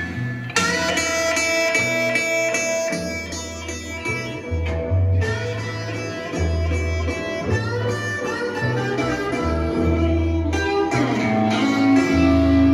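Music playing through Fleetwood Sound Deville horn loudspeakers: an instrumental passage of plucked guitar over a deep bass line that changes note every second or so.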